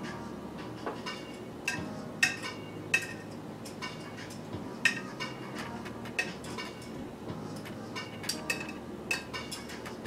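Light, irregular clinks and taps against a ceramic dinner plate as food is placed and arranged on it by hand, each with a short ringing tone, the sharpest about two, three and five seconds in.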